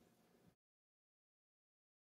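Near silence: faint room tone that cuts off to dead digital silence about half a second in.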